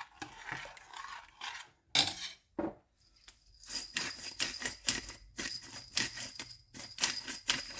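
Pepper grinder being twisted, a rapid run of gritty clicks from about three and a half seconds in, after two sharp knocks near two seconds.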